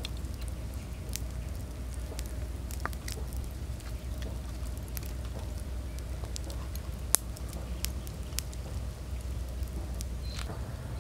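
Wet, sticky hand sounds of grilled pork rib meat being torn apart and squished into a chilli-and-herb mixture: scattered small clicks and crackles, one sharper click about seven seconds in, over a steady low rumble.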